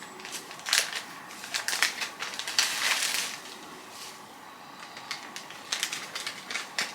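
Packaging crinkling and crackling by hand as a small item is unwrapped: a few short crinkles, a longer one about three seconds in, and another cluster near the end.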